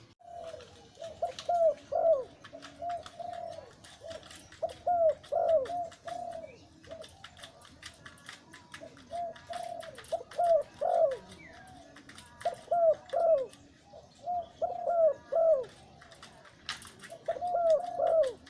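Male zebra dove cooing: a series of rolling phrases of several quick notes, repeated with short pauses between them.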